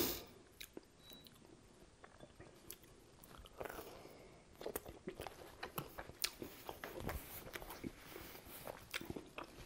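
Close-miked eating of a slice of pizza: a bite into the slice about three and a half seconds in, then chewing with small wet mouth clicks and smacks.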